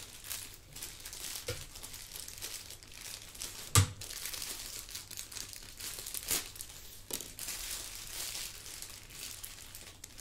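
Plastic packaging crinkling and rustling as a keyboard cable is unwrapped, with a sharp knock about four seconds in and a lighter click a little later.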